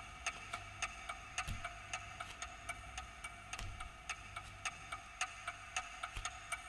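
Clock ticking steadily, about two to three ticks a second, over a faint steady high hum and a low rumble.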